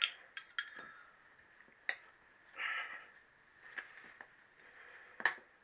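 Tyre levers clicking and knocking against a motorcycle's spoked wheel rim as they are pushed in between the tyre bead and the rim. There are a few scattered sharp clicks and a short scrape about two and a half seconds in.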